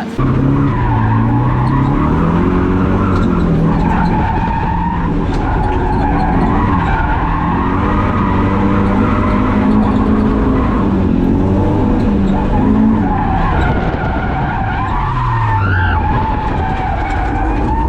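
Drift car's engine revving up and down, its pitch rising and falling repeatedly, over the steady noise of tyres skidding.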